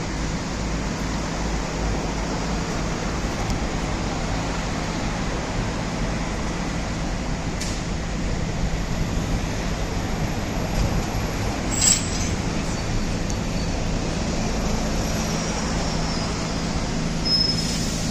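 Construction cradle (suspended access platform) machinery: a steady mechanical drone with a low hum, and one sharp click about twelve seconds in.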